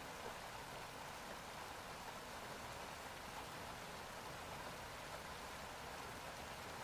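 Faint, steady rush of flowing water.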